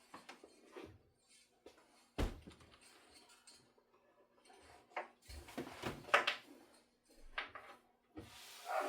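Scattered clicks and knocks of small objects being handled on a hard surface, with one sharp knock about two seconds in and a cluster of clicks around the sixth second.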